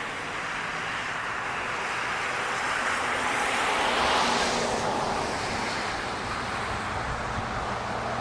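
A car passing on the road, its tyre noise swelling to its loudest about four seconds in and then fading away.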